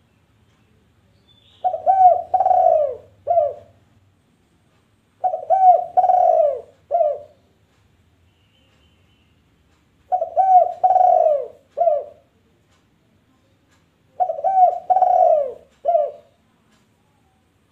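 A dove cooing in four repeated phrases about every 4 to 5 seconds. Each phrase is a couple of quick coos, a longer drawn-out coo, then a short closing coo.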